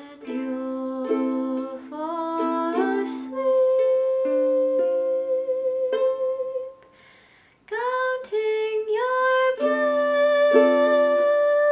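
Kala ukulele strumming chords while a woman sings long held notes over them, her voice sliding up between notes. The music drops away for about a second around seven seconds in, then resumes with another long held note.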